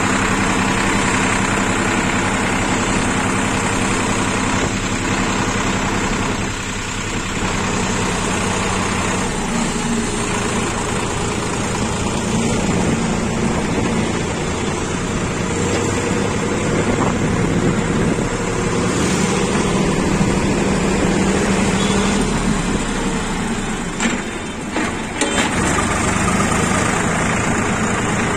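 Sonalika tractor's diesel engine running steadily while driving, heard close up from the driver's seat; its engine note shifts a couple of times.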